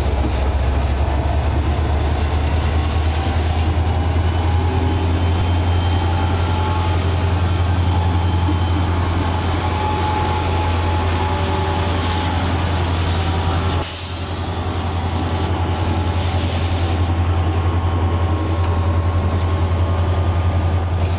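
Diesel-electric freight locomotives (an SD40, a GT26 and a U20) running steadily as the train passes, a deep, even engine drone with rail noise over it. The SD40 is doing the pulling while the GT26 idles in neutral. A short sharp hiss and a brief drop in level come about two-thirds of the way through.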